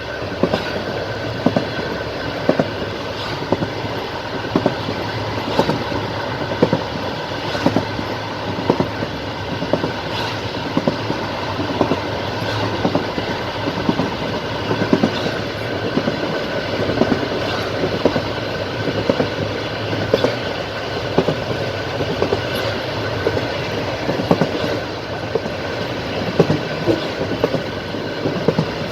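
Passenger train running along the line, its wheels clicking over the rail joints again and again above the steady rumble of the carriage.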